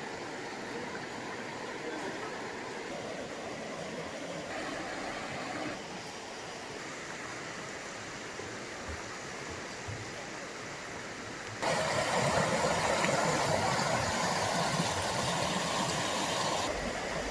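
Water rushing in a rocky mountain stream, a steady noisy rush. About twelve seconds in it cuts suddenly to a louder, closer rush, which drops back near the end.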